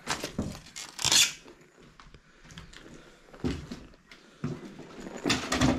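Footsteps crunching and scraping over broken glass and debris on a floor, in irregular bursts of clicks and crackles.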